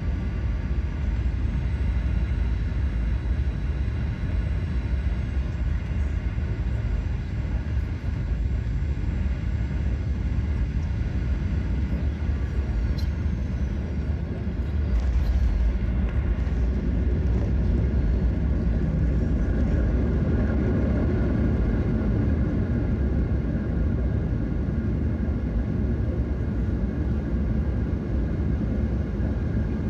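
Airliner cabin noise through landing: a steady rumble of engines and airflow with several high engine whines. About 13 seconds in there is a brief knock as the aircraft is on the runway, and a couple of seconds later the rumble grows louder for several seconds during the landing roll.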